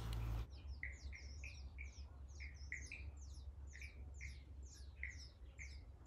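Cape rock thrush chirping: a quick run of short, high chirps, roughly two to three a second, with brief pauses between groups.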